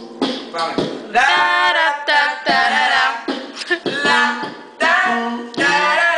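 A man singing a cappella in short phrases of about a second, over another man's beatboxing into a handheld microphone.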